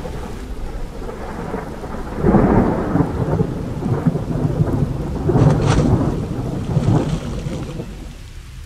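Thunder rumbling over steady rain, with loud rolling swells about two seconds in and again around five and a half and seven seconds.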